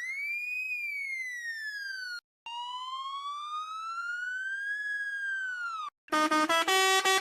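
Electronic police siren wailing in two long sweeps, each cut off abruptly. The first climbs quickly and slides down; the second, lower, rises slowly and falls. About six seconds in, a Pakistani bus musical horn breaks in with a fast, pulsing multi-tone tune.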